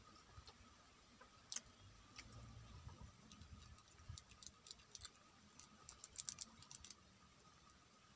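Near silence with faint, scattered small clicks, most of them between about four and seven seconds in: mouth and finger sounds of someone chewing a meal eaten by hand.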